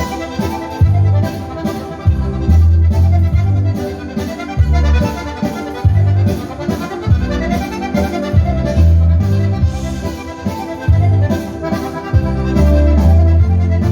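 Accordion-led dance music with a stepping bass line and a regular beat.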